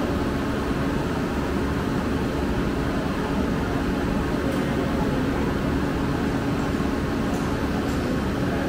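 Steady mechanical hum with a faint steady tone, typical of the lifeboat station's winch hauling the lifeboat up the slipway.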